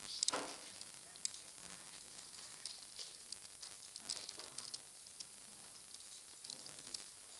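Computer keyboard keys and mouse clicks tapping at irregular intervals over a steady hiss, with a slightly heavier click just after the start.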